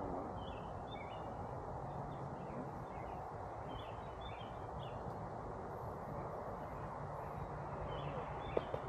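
Honeybees buzzing around an open hive, a steady low hum, with small birds chirping faintly in the background. There is one sharp click near the end.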